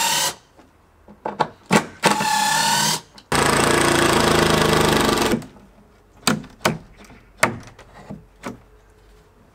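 Cordless driver backing screws out of wooden wall boards: two short motor whines, then about two seconds of loud hammering rattle, followed by a series of sharp knocks on the wood.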